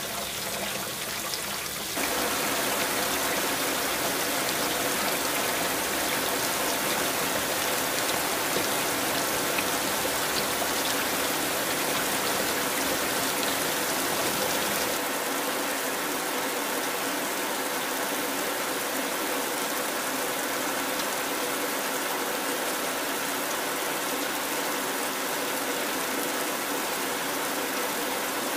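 Heavy rain falling, a steady dense hiss. It grows louder about two seconds in, and about halfway through its deepest part drops away.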